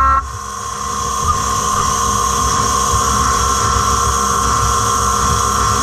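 CNC milling machine cutting a block with a large milling cutter under through-spindle coolant at about 300 psi: a steady whine from the spindle and cut over the hiss of the coolant spray, building over the first couple of seconds and then holding steady.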